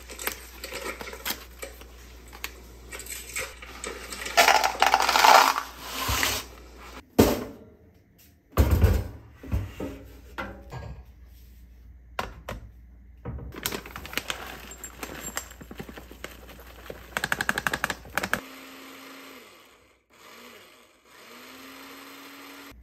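Dry linguine poured from its cardboard box into a plastic jar, rattling and clattering, followed by more clatter of dry food and a bowl handled on a kitchen scale. Near the end a countertop blender motor runs with a steady hum, stops briefly and starts again.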